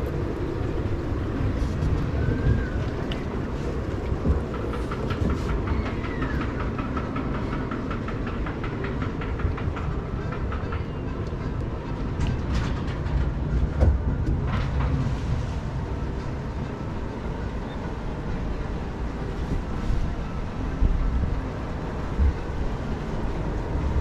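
Log flume boat drifting along its water channel: a steady low rumble of flowing water and the moving boat, with a few short knocks scattered through.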